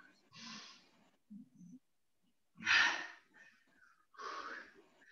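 A person breathing hard while exercising with dumbbells: three forceful, breathy exhalations about one and a half to two seconds apart. Two short, lower puffs come between the first two.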